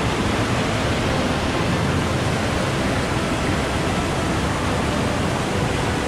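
River water rushing over boulders at the top of a waterfall, a steady roar of white water.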